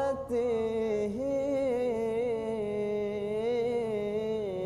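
A man singing a sholawat (Islamic devotional chant), drawing out one long wavering, ornamented note after a brief break just after the start.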